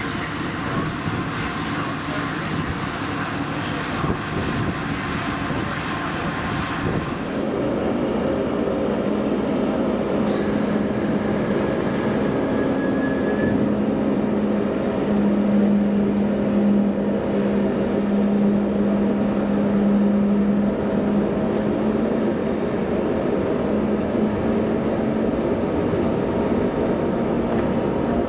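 Steady mechanical drone of a car ferry's engines and machinery. For the first seven seconds it is mixed with wind noise; then it changes to a steadier hum with a strong low tone.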